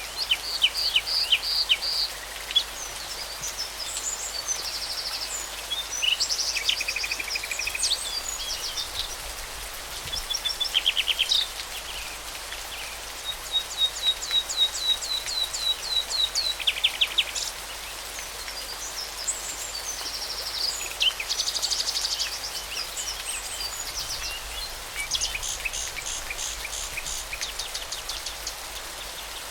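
Songbirds singing: a string of short phrases of fast trills and rapidly repeated high notes, one after another, over a steady hiss.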